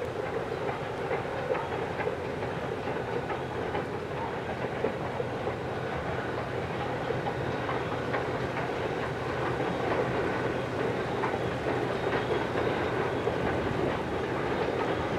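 A steam-hauled train rolling past: steady wheel-on-rail noise with scattered clicks of wheels over rail joints.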